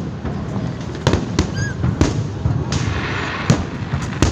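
Fireworks going off: a run of sharp bangs, about five in a little over four seconds, with a hissing crackle near the middle.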